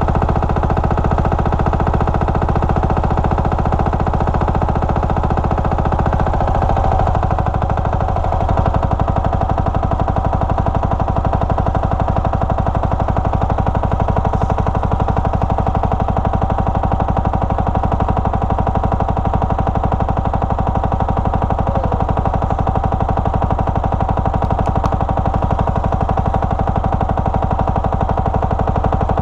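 Lombardini 15LD400 single-cylinder air-cooled diesel engine running steadily on a generator set: a fast, even clatter of firing strokes. Its sound shifts slightly about seven seconds in.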